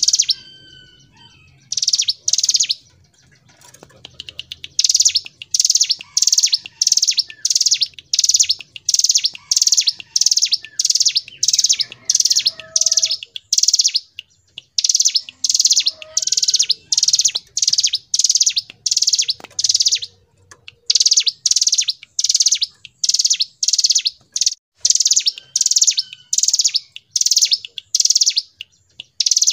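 Ciblek gunung (a mountain prinia) singing a long, rapid run of short, high, buzzy notes, about two a second, with a couple of brief pauses near the start: the drilling, non-stop 'ngebren' song of a bird in full voice.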